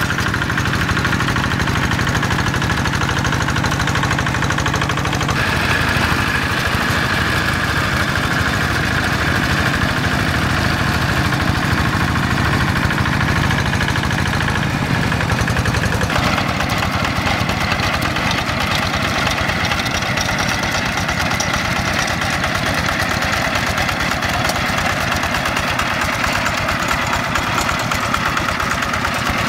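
Yanmar diesel engine of a Quick G1000 two-wheel hand tractor running steadily as the tractor works through a flooded rice paddy. Its tone shifts abruptly about five seconds in and again just past the middle.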